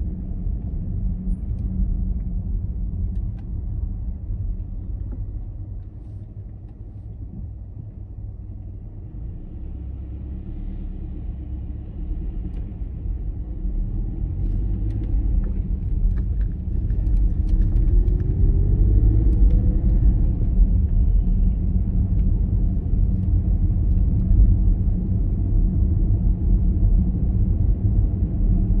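Car running along a city street, heard from inside the cabin: a steady low rumble of engine and tyres on the road. It drops quieter for a few seconds as the car slows, then grows louder as it picks up speed, with a short rising whine about seventeen seconds in.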